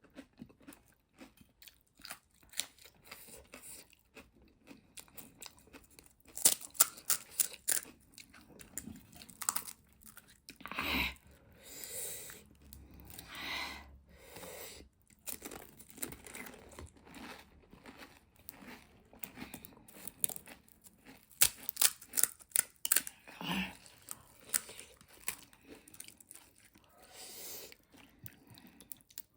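A person eating pani puri close to the microphone: crisp puri shells crunching and cracking between the teeth, with chewing and mouth noises in irregular bursts.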